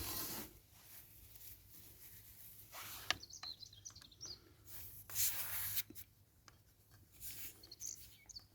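A few short rubbing strokes on a part, several seconds apart, with a sharp click about three seconds in. Small birds chirp faintly in the background.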